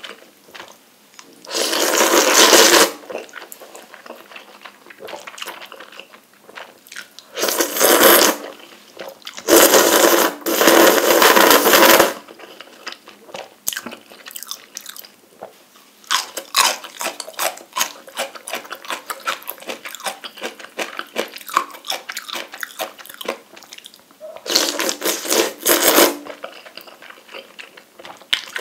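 Close-miked eating of spicy instant noodles in broth: several loud slurps of a second or two each, with wet chewing and mouth clicks in between.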